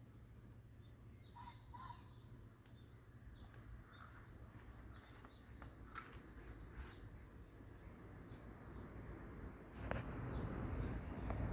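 Small birds chirping, many short high calls scattered over a low steady background rumble. About ten seconds in, a sharp click, then a louder rustling noise.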